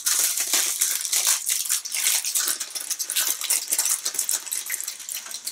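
Small clear plastic bag crinkling as it is handled in the hands, a dense run of small crackles.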